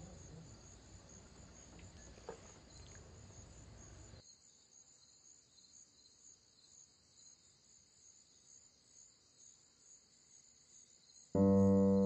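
Faint, steady chirping of crickets as a night-time background; piano music starts loudly near the end.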